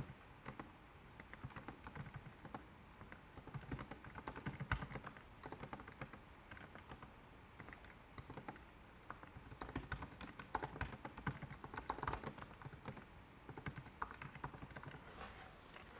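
Computer keyboard being typed on: a long run of quick, uneven key clicks as a command line is typed out.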